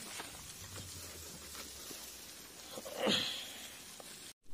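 Wood fire crackling faintly under an iron kadai of onions and ginger-garlic paste dry-roasting without oil: a soft steady hiss with a few faint ticks, and a short breathy sound about three seconds in.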